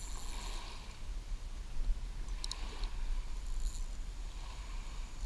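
Water lapping at a lakeshore under a steady low rumble, with a few quick high clicks about two and a half seconds in.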